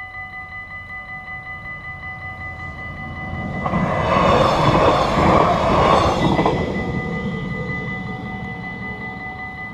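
Stadler GTW electric multiple unit passing over the crossing. It swells to its loudest about four seconds in and fades away after about seven seconds. The level-crossing bells keep ringing steadily throughout.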